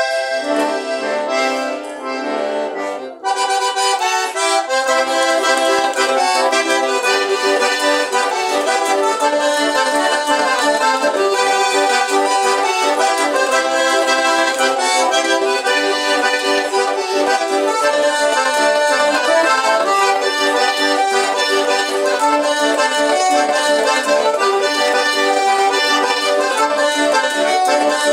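Two button accordions playing a lively chamamé together. The music is thinner for a short opening phrase and fills out, louder, about three seconds in.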